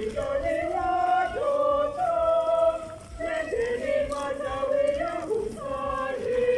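A crowd of churchgoers singing a hymn together: a slow melody of long held notes, with short breaks between phrases.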